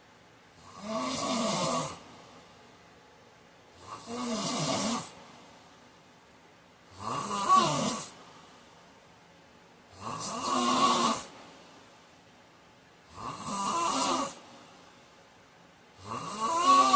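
A man snoring in his sleep: six snores about three seconds apart, each lasting about a second, with quiet between.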